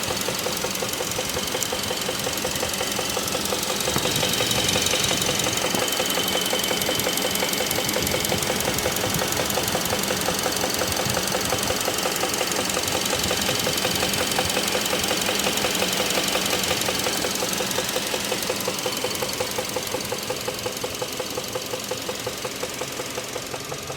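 2016 Kia Optima GDI four-cylinder engine idling with a steady, rapid knock, not a tick, from the lower front of the engine near the pulleys and belts. It comes with Kia's knock-detection code P1326, and the owner cannot tell whether it is a lifter, rod knock or bearing noise.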